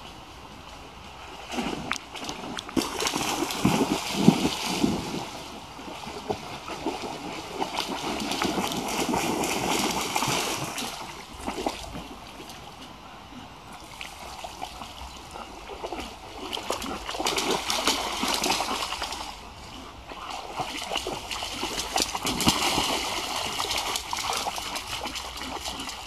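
Alaskan malamute wading and splashing through shallow floodwater, in several spells of sloshing with quieter gaps between.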